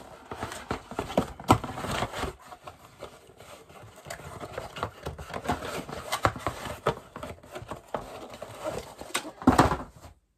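Items and their packaging being handled, with rustling and crinkling and irregular knocks and clicks as things are picked up and set down. A louder clatter comes about a second and a half in and again near the end.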